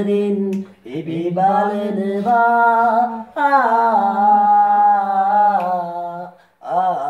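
A man singing a slow song solo with no accompaniment, holding long notes in phrases separated by short pauses for breath.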